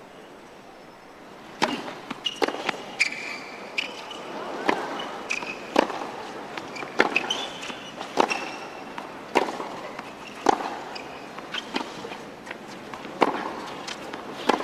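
Tennis ball struck back and forth with racquets in a baseline rally on a hard court, a hit roughly every second, starting about a second and a half in. Short high squeaks come between the shots.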